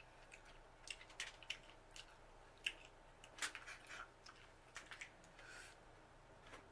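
Faint, scattered wet clicks and smacks of a person chewing and smacking their lips while eating a sauced seafood boil.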